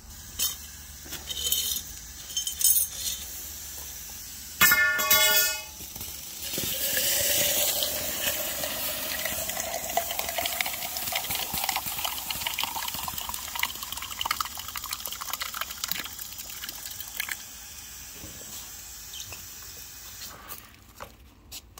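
Hot, freshly welded stainless-steel bracket being quenched with water: a hissing sizzle of water flashing to steam, with a faint rising whistle. It starts about six seconds in, is loudest at first, and dies away over about ten seconds. Just before it comes a brief high squeal.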